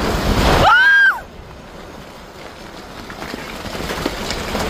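Loud rushing rumble of earthquake shaking, with a single high-pitched cry that rises and falls in pitch about a second in. It cuts off abruptly to a quieter rushing noise with scattered knocks, typical of debris falling from a building, which grows louder near the end.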